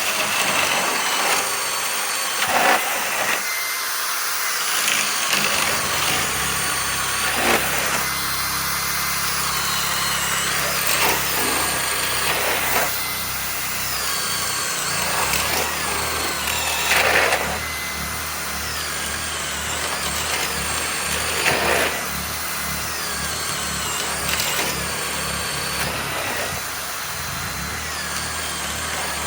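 Masterforce Boost cordless hammer drill boring into wood under load, running continuously. Its high motor whine sags and recovers again and again as the bit bites, with several brief louder surges along the way.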